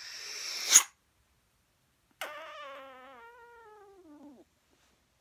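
A loud sniff through the nose, inhaling at a small stone held to the nostril, building and cutting off sharply. About two seconds in comes a long, wavering vocal 'oooh' that slides down in pitch.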